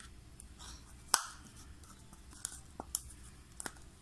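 Hands handling fresh yeast over a plastic mixer bowl: one sharp click about a second in, then a few fainter clicks and taps.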